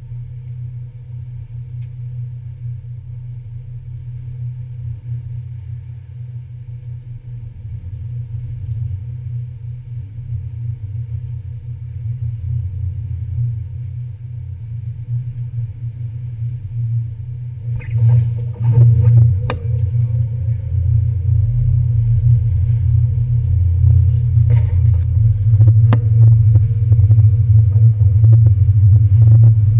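NY Waterway ferry's diesel engines rumbling steadily, growing louder as the boat works its way in to dock. From a little past halfway, clatter and several sharp knocks join the rumble as the ferry comes alongside the terminal.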